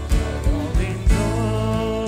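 A worship band playing a song live: a man singing in Afrikaans over acoustic and electric guitars, keyboard and drums, with a few drum beats thumping through.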